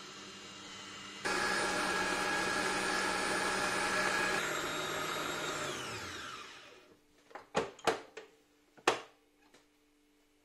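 Kenwood Chef XL Elite stand mixer beating cake batter: the motor, running slowly, is turned up to a much louder higher speed about a second in, steps down slightly around four seconds, then is switched off and winds down with a falling whine. A few sharp clunks follow as the mixer head is raised.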